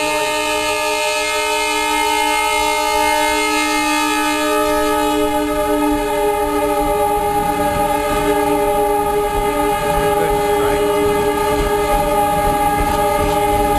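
Train horn held in one long, steady blast as the train approaches the level crossing, with the low rumble of the train growing in about five seconds in.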